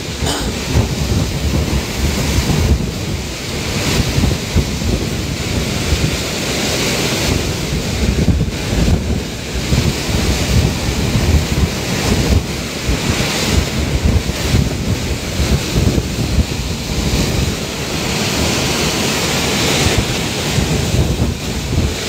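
Typhoon-force wind blowing in gusts that buffet the microphone, with heavy rain, as a loud, unbroken rush whose level keeps rising and falling.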